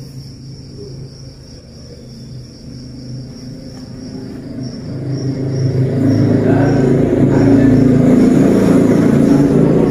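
A vehicle engine running with a steady low rumble, growing louder from about halfway through and staying loud to the end.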